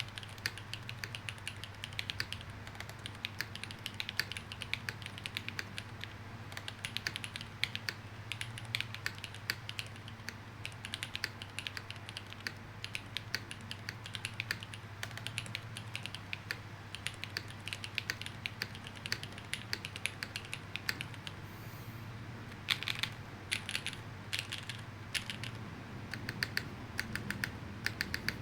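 Typing on a custom top-mount mechanical keyboard with Gateron Sea Salt switches, GMK doubleshot ABS keycaps and Staebies stabilizers: rapid, continuous keystroke clacks, with a short pause about three-quarters through before typing picks up again in bursts.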